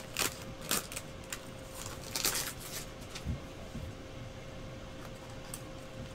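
Trading card and plastic card holders being handled: a few light clicks and a short rustle in the first half, then only a faint steady hum with a thin steady whine.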